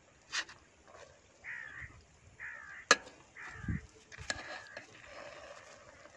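A crow cawing three times, about a second apart, with a single sharp click between the second and third caw that is the loudest sound, plus a few fainter knocks.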